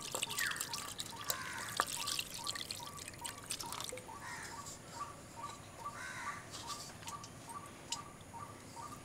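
Water trickling and dripping through a cotton cloth as fresh chhana curds are rinsed to wash out the sour lemon-juice whey; quiet, with scattered small drips.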